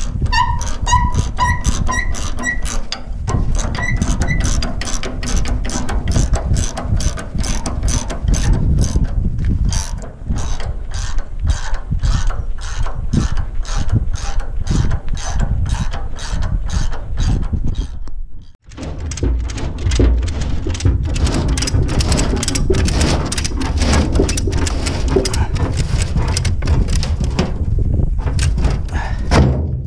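Manure spreader's floor-conveyor ratchet drive clicking steadily, about three clicks a second, as the conveyor is run round, over a low tractor engine rumble. The clicking breaks off briefly about 18 seconds in, then resumes.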